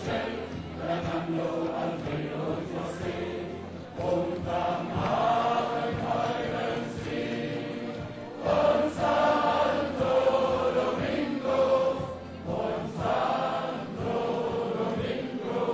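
A group of men singing together in chorus, phrase by phrase, to live instrumental accompaniment.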